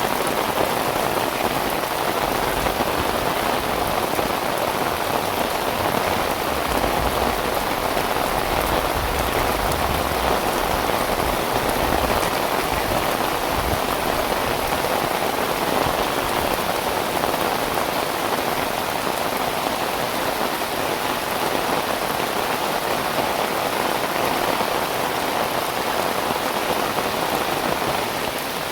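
Heavy rain falling steadily, a dense even hiss of drops on surfaces. A low rumble swells in under it from about six to twelve seconds in.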